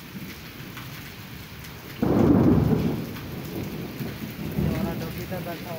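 Steady heavy rain falling on a concrete courtyard, with a sudden loud thunderclap about two seconds in that rumbles on and fades over the next few seconds.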